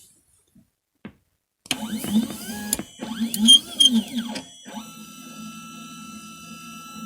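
Stepper motors of a CNC 3018 Pro desktop router driving its axes, whining in tones that rise and fall as each move speeds up and slows down, with sharp clicks where moves start and stop. From about five seconds in a steadier whine holds as an axis travels at constant speed. The machine is moving against its limit switches.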